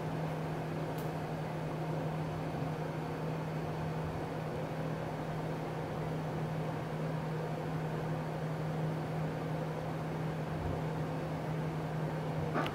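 Steady hum of a small electric motor with a soft rush of air, with no change in speed. It stops with a short click near the end.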